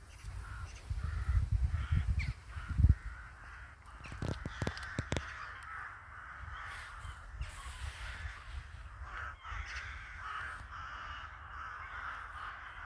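Crows cawing continuously, many calls overlapping. A low rumble runs through the first few seconds and ends in a sharp, loud thump about three seconds in.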